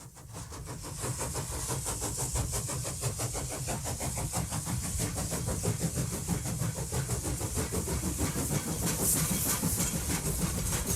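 A train running, with an even, fast rhythmic clatter over a steady hiss. It fades in over the first second, then holds steady.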